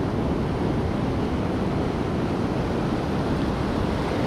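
Ocean surf washing steadily in the shallows, with wind buffeting the microphone.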